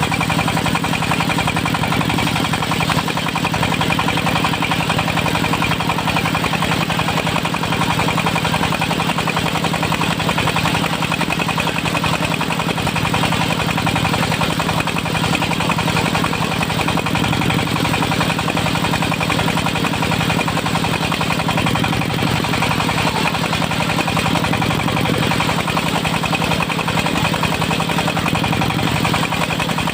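Diesel engine of a portable circular sawmill running steadily at an even speed.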